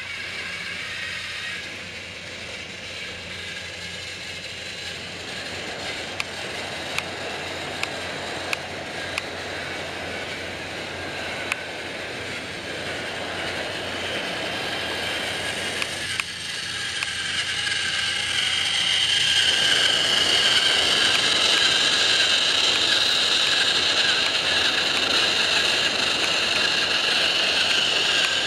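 Battery-powered Trackmaster toy train engines running on plastic track: a steady whirring of small motors and gears, with a few sharp clicks in the first half. About two-thirds of the way through it grows louder, with a high whine.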